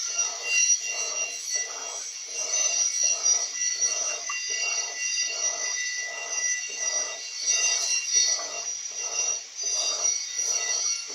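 Electrolux Silent Control 16 kg (LAC 16) top-loading washing machine agitating a duvet load, churning back and forth about twice a second, with a steady high-pitched whine over it.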